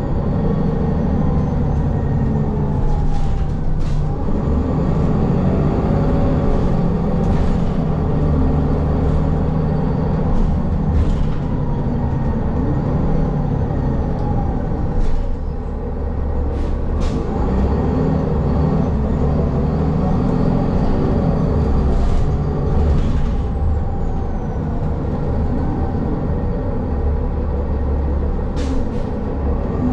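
A city transit bus heard from inside its cabin while under way. The engine's pitch rises and falls in slow sweeps as the bus speeds up and slows, with scattered clicks and rattles over the steady road noise.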